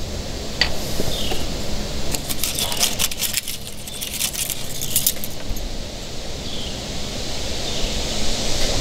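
Light clicks and small metallic rattles of hands handling thin wire and crimp terminals, bunched between about two and five seconds in, over steady low background noise.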